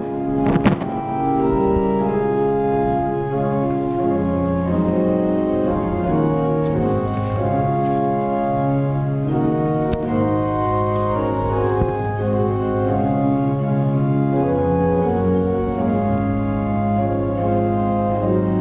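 Church organ playing slow, sustained chords, with a short knock about half a second in.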